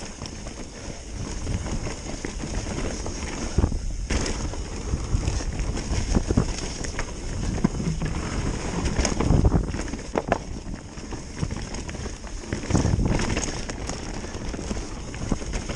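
Mountain bike riding fast down a forest trail: tyres rolling over dirt and dry leaves with a steady rumble, and the bike rattling with sharp knocks over bumps scattered throughout. The rumble is loudest around nine to ten seconds in, as the bike crosses a wooden plank section.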